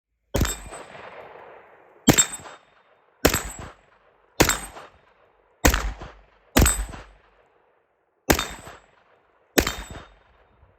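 Eight shots from a 9mm carbine, each met by the ring of a struck AR500 steel paddle on a dueling tree, spaced about one to one and a half seconds apart.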